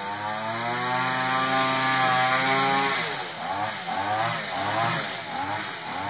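Petrol engine revving: it holds a steady high speed, then about three seconds in drops and is blipped up and down several times in quick succession.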